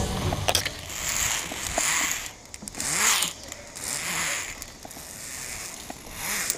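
Footsteps and harness gear rustling and scraping about once a second, with a few light clicks, as someone crosses a suspended wooden plank-and-cable bridge.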